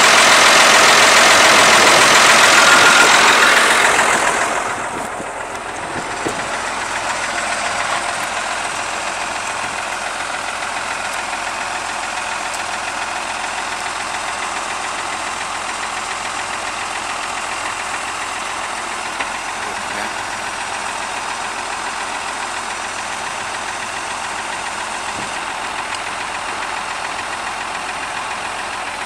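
Ford TW30 tractor's six-cylinder diesel engine idling. It is louder for the first four seconds or so, then drops to a steady lower level.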